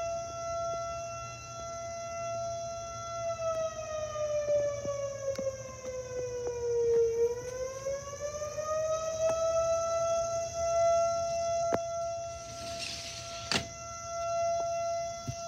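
A siren sounding one steady wailing tone. Its pitch sinks slowly for a few seconds midway and then climbs back to where it was. Near the end there is a brief hiss and a sharp click.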